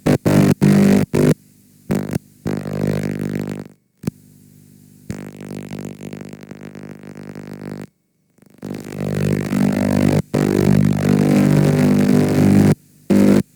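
Garbled, distorted playback from a damaged VHS tape: buzzing, smeared audio that keeps cutting in and out, with a run of short choppy bursts at the start and two complete dropouts partway through.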